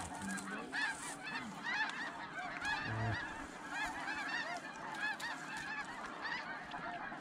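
Snow geese calling in a dense, overlapping chorus of short, high honks, as from a large flock.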